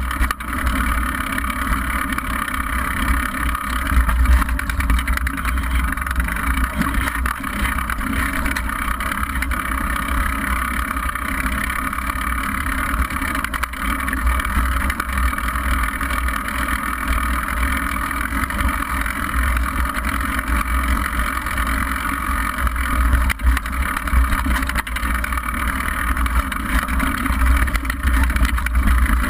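Steady rush of wind and tyre noise from a downhill mountain bike rolling fast over a dirt trail, picked up by a camera mounted on the bike, with a deep fluctuating rumble and a few brief jolts.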